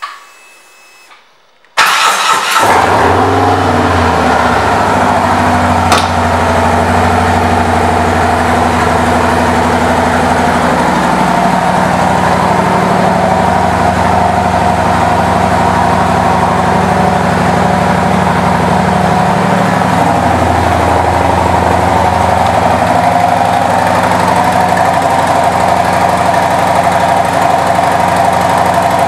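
A 2017 Harley-Davidson Road Glide Special's Milwaukee-Eight V-twin, fitted with an aftermarket Freedom exhaust, is started about two seconds in. It catches at once, settles within a couple of seconds and then idles steadily, with one sharp click a few seconds after the start.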